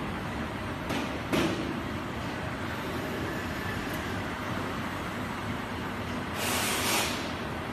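Steady din of a factory hall, with two sharp knocks about a second in and a burst of hiss lasting about half a second near the end.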